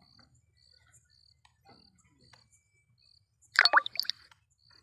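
A cricket chirping steadily at night, a short high chirp roughly every half second. A brief loud sound breaks in about three and a half seconds in.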